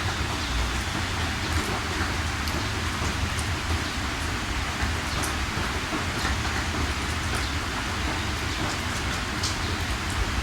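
Steady rain falling: an even hiss with scattered sharp drop hits on top and a low rumble underneath.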